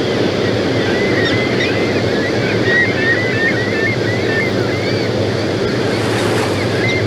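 A steady roar of rushing water with a flock of gulls calling over it, many short squeaky calls in quick succession from about a second in.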